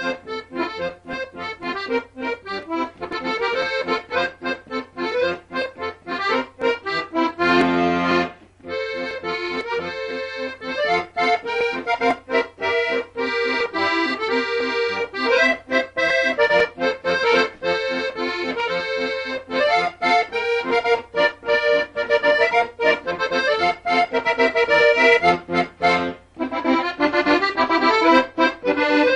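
Instrumental background music with a quick, steady beat; it drops out for a moment about eight seconds in and again near the end.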